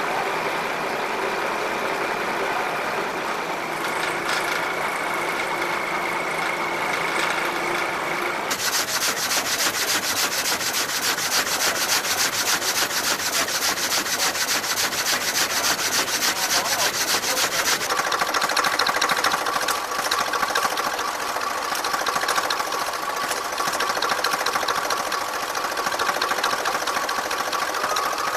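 Vintage tractor engines running steadily. About eight seconds in, this gives way to a fast, rasping rhythm from a machine sawing a log. About ten seconds later, another tractor engine takes over, running with a quick, even beat.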